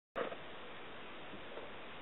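Two cats wrestling on a cloth blanket: soft scuffling and rustling over a steady hiss, with a brief louder sound right at the start.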